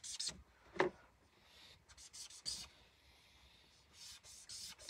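Marker pen rubbing across sketchbook paper while shading, in short strokes: a quick run at the start, a few more midway and again near the end. There is one brief, louder knock about a second in.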